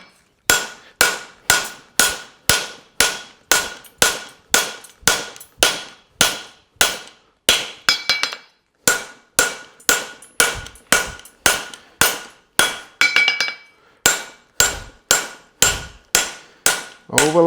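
Steady hand-hammer blows, about two a second, fullering the groove into a hot steel horseshoe on an anvil. Each strike has a metallic ring, and there is a short pause near the end before the blows resume.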